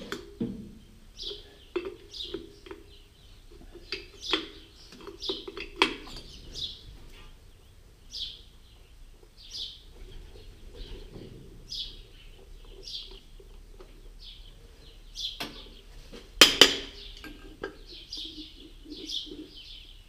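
Small birds chirping over and over in short calls, mixed with sharp metallic clinks and knocks of a spanner on the tractor engine. The loudest clink comes about sixteen seconds in.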